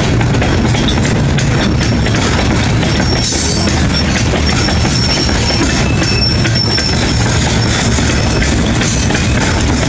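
Canadian Pacific freight train of covered hopper cars rolling past close by: a steady loud rumble of steel wheels on rail, with a thin high wheel squeal coming and going and clicks of wheels crossing rail joints.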